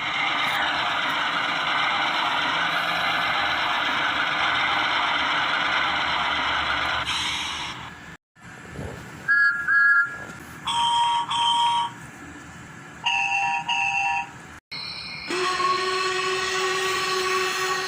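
A run of separate steam-train sound effects. First comes about seven seconds of steady rushing noise. Then three pairs of short whistle toots, each pair at a different pitch, and finally one long held whistle near the end.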